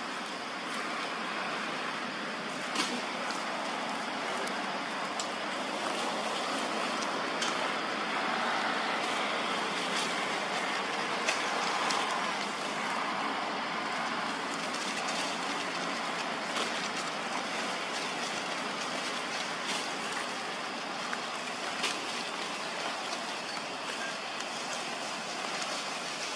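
Steady outdoor background rush with no clear pitch, slightly louder midway, broken by scattered small clicks and ticks.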